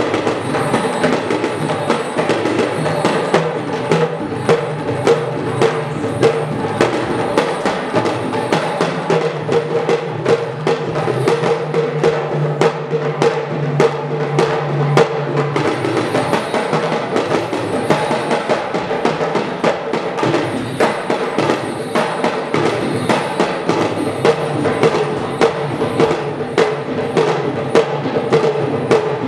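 Fast Yoruba bàtá drum music accompanying the dance: rapid, dense drum strikes over a held, sustained tone.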